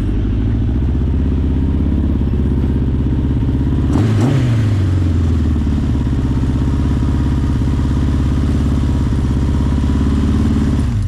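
1981 Honda CB900's inline-four engine idling steadily, with one quick blip of the throttle about four seconds in that rises and falls back, working the newly fitted throttle cable. The engine is shut off and cuts out suddenly at the end.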